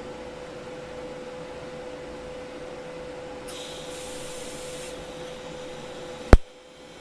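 Steady electrical hum of a TIG welding setup, with a brief hiss about three and a half seconds in and a single loud, sharp click about a second before the end.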